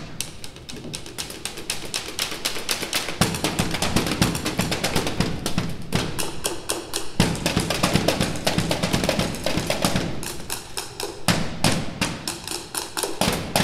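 A school band playing, with drums and percussion strikes prominent over the pitched instruments.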